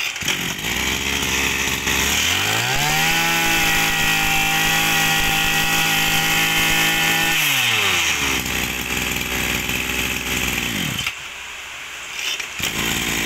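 Maruyama BIG M 26cc two-stroke brush cutter engine, just pull-started and idling. About two seconds in it revs up and holds high for around five seconds, then drops back to idle. Its sound falls away about eleven seconds in and picks up again near the end.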